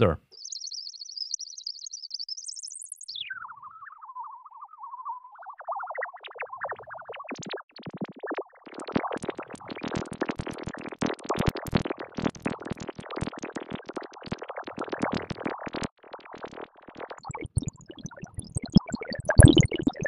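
ZynAddSubFX synthesizer patch of resonant, randomly modulated filtered noise making a 'digital water' or 'electronic water' sound. It starts as a thin high tone that climbs about 3 s in and then falls sharply to a lower one, and from about 5 s on it turns into fast, jittery, chirping blips.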